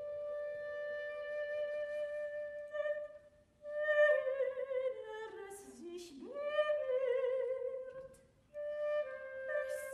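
Contemporary art music for soprano and flute: long held notes, then a wavering line that slides down in pitch in the middle, with short breathy bursts. After a brief pause near the end, notes step downward.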